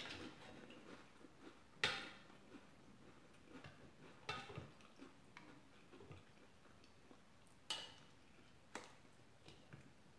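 A spoon clinking against a glass bowl of soup: several sharp clinks with a short ring, spaced irregularly a second or more apart.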